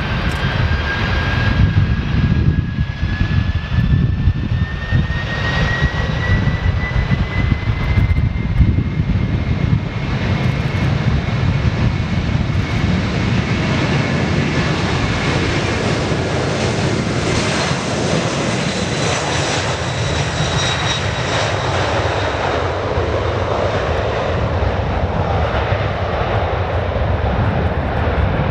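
Airbus A300 freighter's twin turbofan engines running at takeoff power on the takeoff roll: a loud, steady jet noise with a deep rumble and a fan whine that rises in pitch over the first several seconds, then holds.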